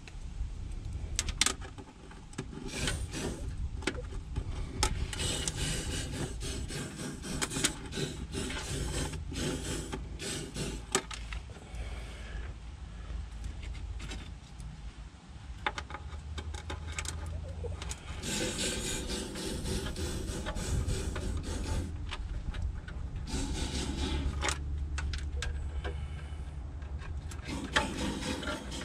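Aerosol can of Fluid Film rust-proofer hissing in spurts through a long plastic extension hose inside a truck's rocker panel, mixed with the hose rubbing and scraping against the metal as it is worked along.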